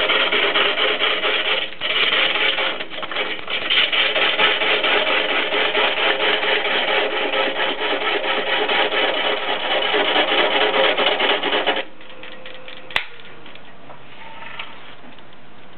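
A turning gouge cutting into a large log blank spinning on a wood lathe, roughing it down: a loud, continuous rough shearing and scraping with short breaks about two and three seconds in. The cut stops abruptly about twelve seconds in, leaving a quieter steady background and one sharp knock a second later.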